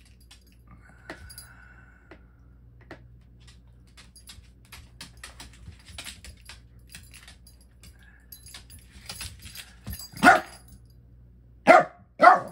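Two dogs playing: claws click and skitter on a wooden floor, then three loud barks in quick succession near the end, play barks given during a play bow.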